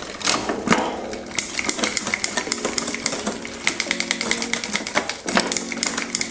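Fast, even ticking of a mountain bike's rear hub ratchet as the wheel or cranks spin, with a short break about five seconds in. Background music plays under it.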